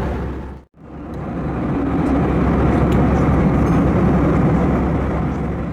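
Steady noise of an Airbus A321 airliner's jet engines and airflow, a broad even rush with a strong low rumble. It drops out briefly under a second in and fades back up.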